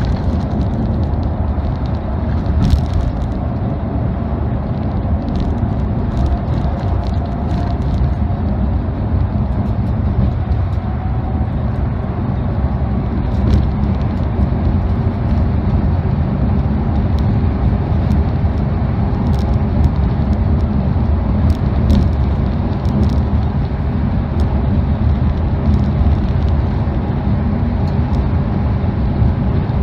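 Steady engine and tyre rumble heard from inside a moving V/Line Speedlink road coach cruising along at speed.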